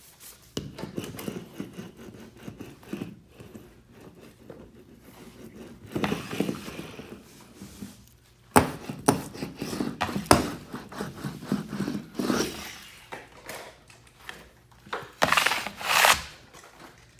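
Irregular rubbing and scraping handling noises, with a few sharp knocks about halfway through and a louder brushing hiss near the end.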